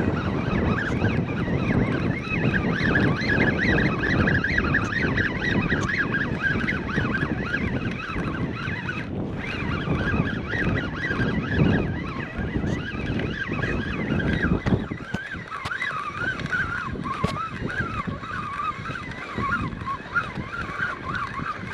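Wind buffeting the microphone over breaking surf, with a wavering whine over it.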